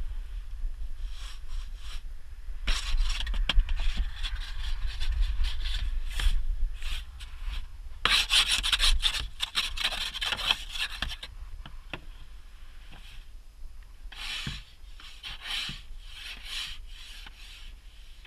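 Snow brush sweeping snow off a car's windows and windshield, heard from inside the car: a long run of raspy brushing strokes, loudest about eight to eleven seconds in.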